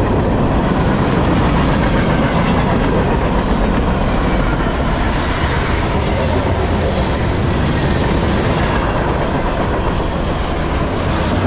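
Freight cars of a long manifest train (boxcars, coil cars, gondolas, tank cars) rolling past close by: a loud, steady rumble of steel wheels on the rails.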